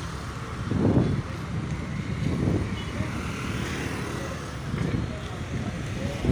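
Road traffic noise: cars and motorcycles passing on a wide road, with the voices of a crowd in the background.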